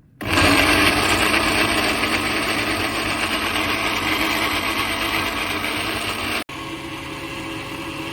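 Electric blender motor pureeing cooked carrots and sweet potato into baby food, running loud and steady, then stopping abruptly after about six and a half seconds. A quieter steady motor hum follows.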